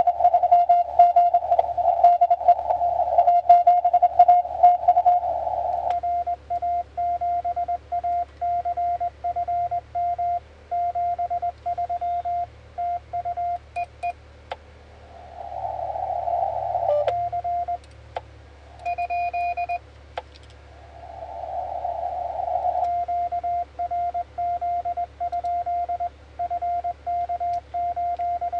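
Morse code from a Yaesu FT-897 HF transceiver: a single mid-pitched CW tone keyed in dots and dashes. For the first six seconds it comes through with band hiss and clicks as a received signal, then turns clean as the transceiver's sidetone while the operator sends, broken twice by a second or two of receiver hiss.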